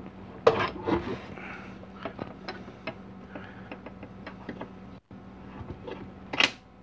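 Small metal parts and tools clinking and knocking on a workbench as they are handled: a string of sharp clicks, with louder knocks about a second in and again near the end, over a faint steady hum.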